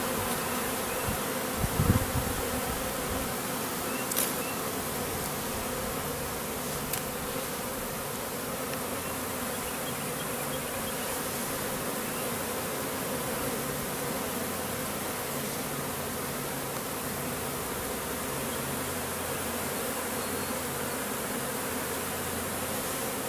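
A swarm of honey bees buzzing in a steady hum as the bees crowd in at the entrance of a top bar hive. There is a brief knock about two seconds in.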